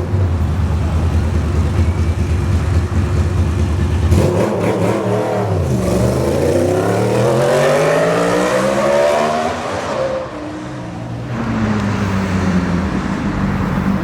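Yamaha R1 inline-four engine held at steady high revs during a burnout. About four seconds in the note dips, then climbs steadily for several seconds as the revs rise. Near the end a BMW S1000RR engine runs at a steady pitch.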